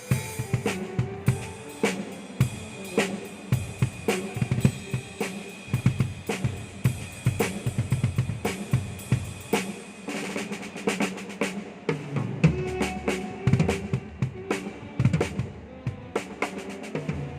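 Drum kit played continuously during a sound check: a busy pattern of strokes with low drum thumps and cymbals ringing throughout.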